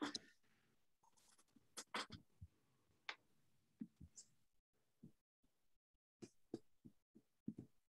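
Faint, irregular clicks and taps from a computer keyboard and mouse, picked up through a video-call microphone, with near silence between them.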